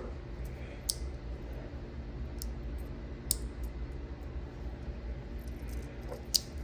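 A few sparse, sharp clicks from a fidget toy being turned and handled, over a low steady hum.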